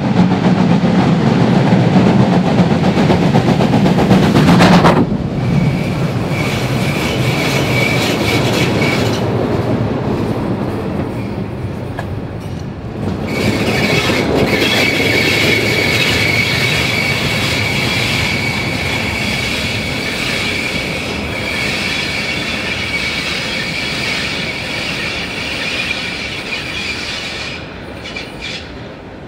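Steam locomotives on the move: a heavy low rumble from a double-headed pair for the first five seconds, then passing wheels with rail clatter and a steady high-pitched wheel squeal that holds for long stretches.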